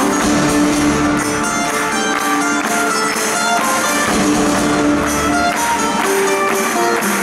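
Live unplugged rock band playing an instrumental passage: acoustic guitars over a string section, with a steady percussive beat.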